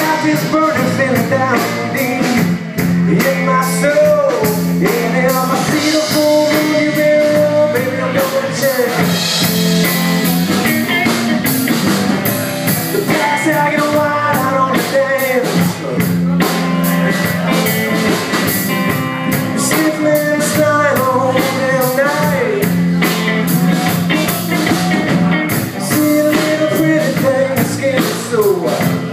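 Rock band playing a blues-tinged rock song, with guitar and drums running steadily throughout.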